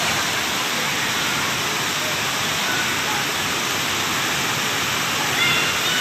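Waterfall and the water pouring down a sloping weir below it: a steady, even rush of falling water.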